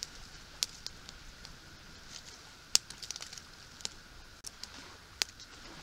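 Dry twigs snapping and a small campfire crackling as sticks are stacked around it: scattered sharp snaps, the loudest about three and five seconds in.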